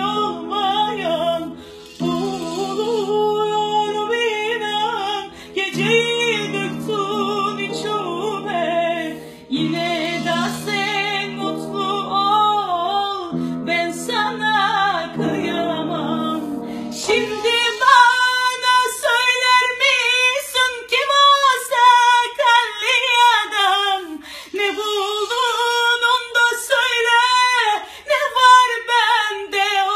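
A woman singing a richly ornamented melody over held instrumental chords. About 17 seconds in, the accompaniment drops out and she carries on unaccompanied in a high voice, with quick runs and turns on each note.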